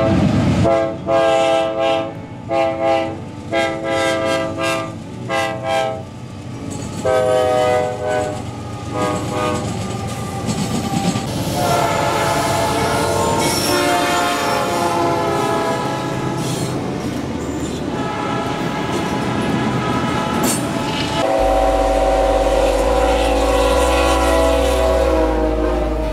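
Freight diesel locomotive horns: a quick run of short blasts, about two a second, for the first several seconds, then longer blasts, and from about three quarters of the way in, a long held horn over the deep rumble of locomotives passing close.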